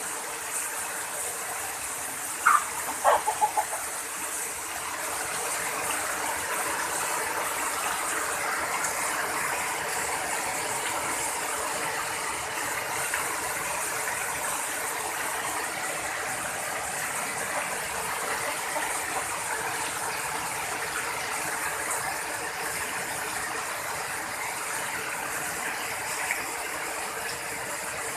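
Steady rain falling. A chicken gives a few short calls about two and a half to three and a half seconds in.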